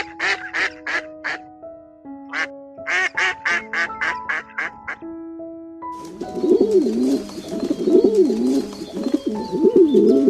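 Duck quacking in two quick runs of rapid quacks, about six and then eight, over soft background music. From about six seconds in, a pigeon coos repeatedly, each coo rising and falling in pitch about once a second.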